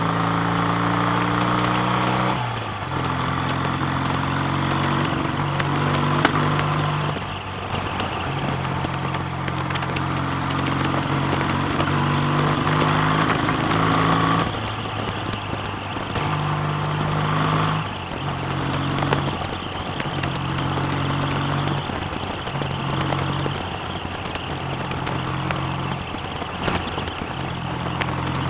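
BSA A65 650 cc parallel-twin engine running on the road, heard over wind rush, its note stepping up and down every few seconds. The engine is suffering a worsening misfire from a failing electronic ignition.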